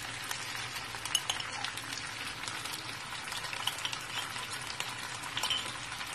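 Chicken wings frying in oil in a wok: a steady sizzle with scattered small crackles.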